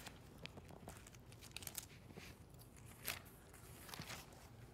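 Faint rustle of thin Bible pages being leafed through by hand, several brief crinkles and soft paper ticks.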